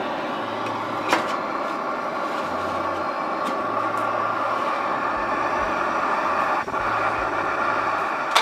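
Camp Chef Stryker canister stove's gas burner running steadily under its pot as it heats water, a continuous hiss. A light click sounds about a second in and a sharper, louder click near the end.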